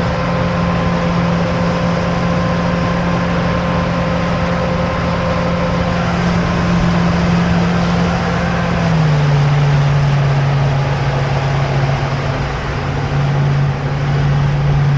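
Motorboat engine running steadily under way, its drone dropping to a lower pitch about nine seconds in as the boat slows, over a steady rush of noise.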